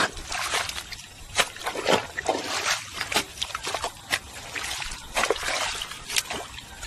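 Shallow water sloshing and splashing in many short, irregular splashes, as when someone wades and gropes by hand through it.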